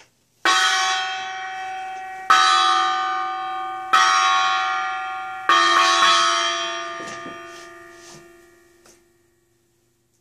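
A bell struck four times, roughly one and a half to two seconds apart. Each strike rings on in several tones and fades slowly, and the last ring dies away near the end.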